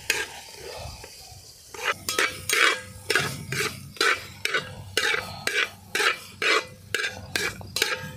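A metal ladle stirs fried egg pieces through thick, boiling pickle masala in a wide metal uruli. After a quieter simmering hiss, it scrapes the pot about twice a second.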